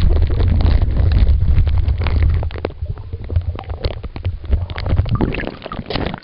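Water churning and splashing against a handheld camera as the swimmer does flips: a heavy rumble with many small crackles and pops, easing after about five seconds.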